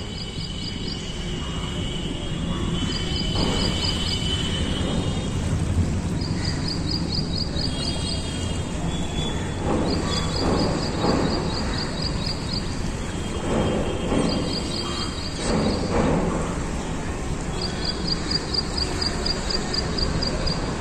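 Outdoor riverbank ambience: a steady low rumble, with short trains of rapid high-pitched ticking chirps that repeat every few seconds.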